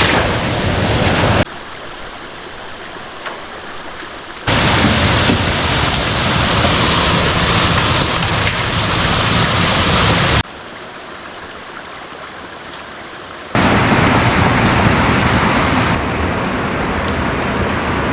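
Water rushing and spilling at a beaver-plugged culvert, making a loud, even hiss. About a second and a half in and again about ten seconds in, it drops abruptly to a quieter, duller rush for about three seconds before jumping back up.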